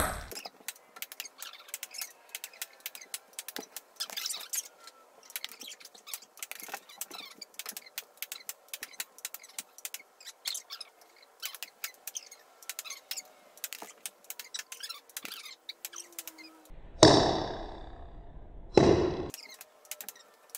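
Ping-pong balls struck with a table tennis paddle and bouncing on a timber floor: many quick, irregular light clicks and taps, with two much louder knocks near the end, a couple of seconds apart.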